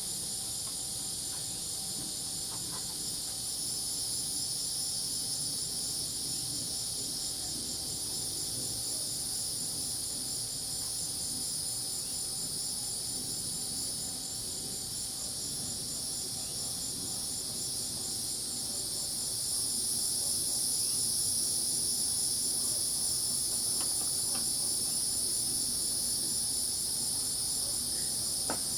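Dense, steady chorus of crickets and cicadas, all high-pitched continuous trilling with a fast pulse in one band. It swells slightly about two-thirds of the way through.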